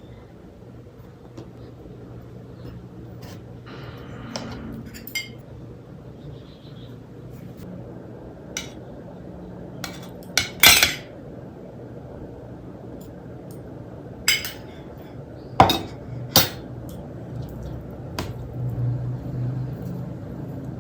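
Dishes and cutlery clinking: utensils knocking and scraping against plates and bowls as a meal is served and eaten. Scattered sharp clinks, the loudest about ten and a half seconds in and a pair near sixteen seconds, over a faint low hum.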